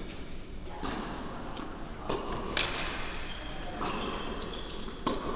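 Tennis ball impacts ringing in a large indoor tennis hall, with two sharp knocks about two and a half and five seconds in.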